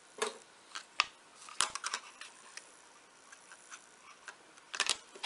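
Small metal bulldog clips clicking and tapping as they are handled and clamped onto the freshly glued spine edge of a paper page. Scattered sharp clicks, with a cluster about two seconds in and another near the end.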